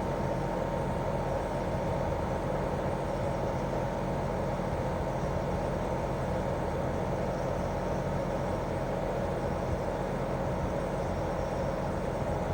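Daikin R28RMV mini-split outdoor unit running steadily in heating mode: its twin-cylinder swing inverter compressor and propeller fan make an even hum with a thin steady tone running through it.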